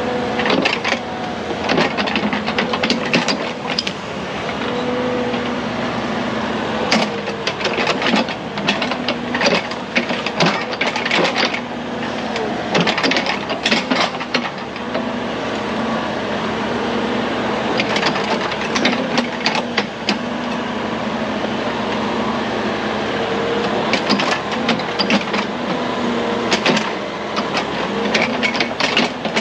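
Cat 304 mini excavator's diesel engine running steadily under hydraulic load, with repeated clanks and scrapes as the bucket digs and moves dirt.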